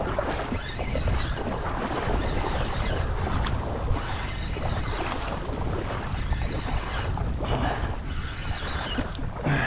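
Wind buffeting the microphone in a steady rumbling rush over open shallow water, with small waves lapping beneath it.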